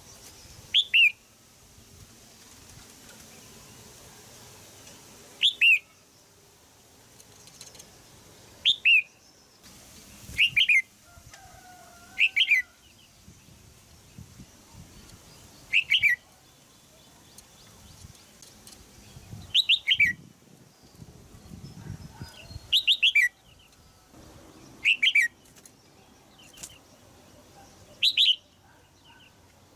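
Red-whiskered bulbul, a caged female, giving sharp "jiak" calls. Each call is a short downward-sweeping chirp, mostly in quick pairs or triplets, repeated every few seconds.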